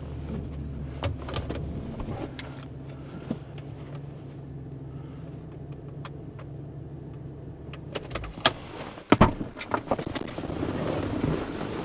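A vehicle engine idling steadily, then shutting off about eight seconds in, followed by several sharp clunks and clicks.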